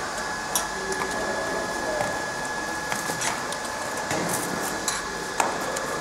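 Steady machine hum of a factory floor with a thin, high, steady whine, and scattered short clicks and knocks.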